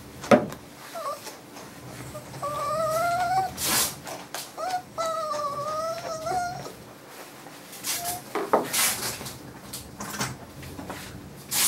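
A muzzled small dog whining: two drawn-out, wavering whimpers of about a second each, with a few short yelps between them. Several brief hissing bursts come after the first whimper, later on and near the end.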